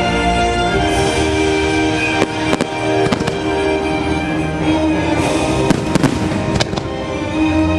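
Aerial fireworks shells bursting with a run of sharp bangs, about eight between two and seven seconds in, over the show's loud orchestral soundtrack music.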